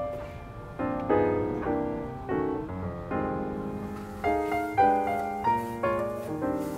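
Background piano music, with notes and chords struck one after another and left to ring out.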